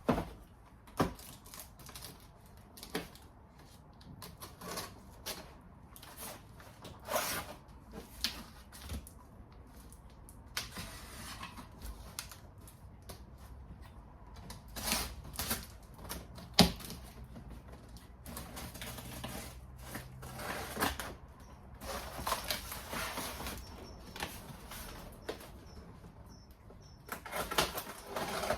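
A delivered parcel being opened and its packaging handled: irregular clicks, knocks and stretches of rustling cardboard and wrapping.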